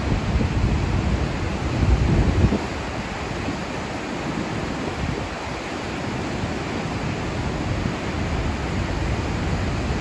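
Steady rushing of river rapids, whitewater pouring over granite ledges. For the first two and a half seconds, low gusts of wind buffet the microphone, then they ease off.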